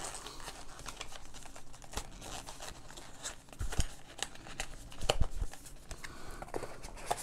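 Cardboard packaging being handled: rustling and scraping of a paper box and insert, with a few light taps and clicks.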